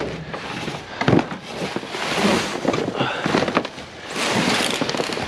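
Scrap being rummaged through in a dumpster: rustling and scraping of debris, with a sharp knock about a second in.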